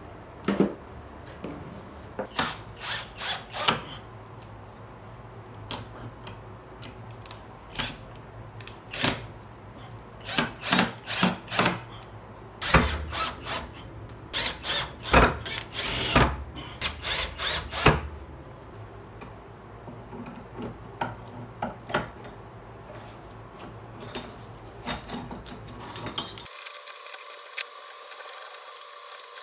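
Cordless drill run in short trigger bursts, driving screws to fix the vise to the underside of the bench. The bursts come in quick runs, thickest in the middle of the stretch.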